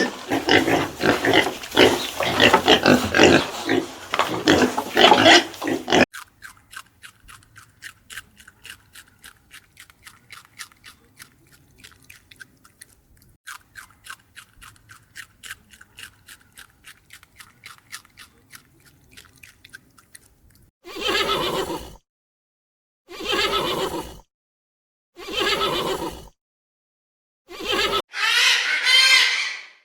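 Animal sounds in three parts: about six seconds of dense, loud animal noise; then a long run of quiet, rapid clicking at several clicks a second, like chewing; then four or five short separate calls in the last nine seconds.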